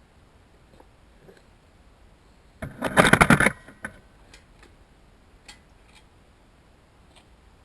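Bicycle chain rattling and clicking against metal as it is fitted back on: a loud burst of rapid metallic clicking lasting about a second, a few seconds in, followed by a few scattered single clicks.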